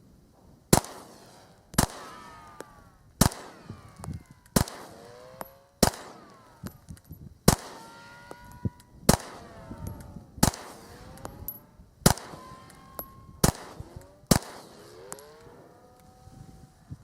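Smith & Wesson M&P 9 pistol (9mm) firing about eleven single shots at a slow, steady pace, roughly one every second and a half, in slow-fire accuracy shooting. Faint metallic ringing follows between the shots.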